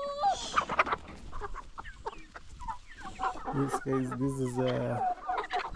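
A flock of domestic chickens clucking as they crowd in to peck at crumbled ugali, with a low drawn-out call lasting about a second and a half near the middle.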